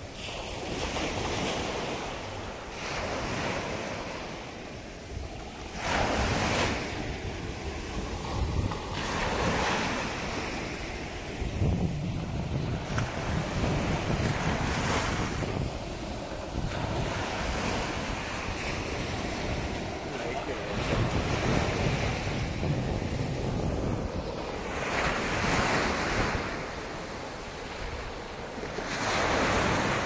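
Ocean surf breaking on a beach, waves surging in and washing back every few seconds, with wind buffeting the microphone.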